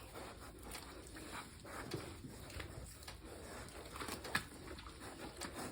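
Faint animal sounds with scattered soft rustles and knocks, and one slightly louder tick about four seconds in.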